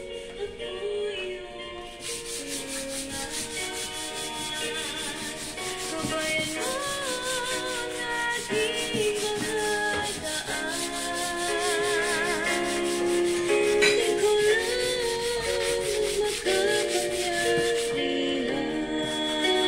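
Sandpaper rubbed by hand over dried putty on a countertop edge, in rapid, regular strokes that start about two seconds in and stop near the end. Background music with singing plays throughout.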